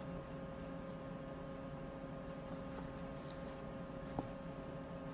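Quiet room tone with a steady electrical hum, and one faint tap about four seconds in.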